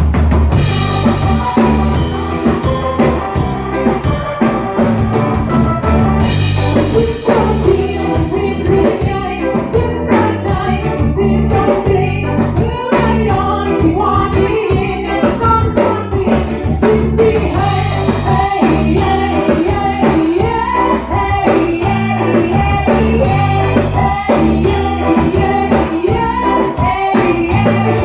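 Song with a singing voice over bass and drums, playing loudly and steadily.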